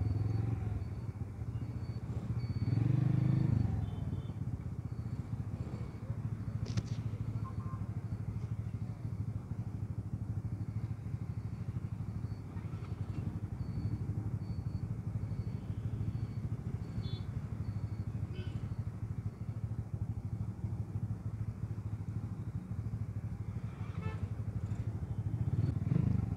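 Motorcycle engine running at low speed and idling in slow traffic, with a brief rise in engine note about three seconds in.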